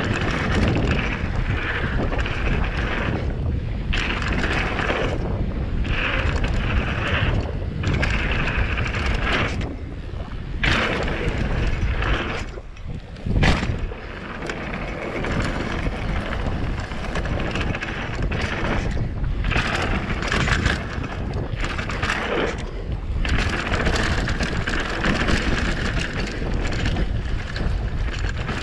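Mountain bike tyres rolling fast over a dirt trail, with wind rushing over the camera microphone and a hard knock about halfway through.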